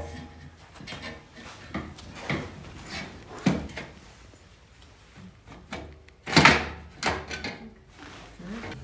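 Khrome Werks slip-on motorcycle mufflers being worked onto the exhaust pipes: a series of scrapes and knocks as the metal pipes are pushed and jiggled, the loudest a longer scraping push about six seconds in.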